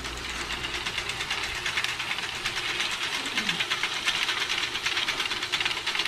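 Hay bale elevator running, its drive chain and flights rattling in a steady, rapid clatter.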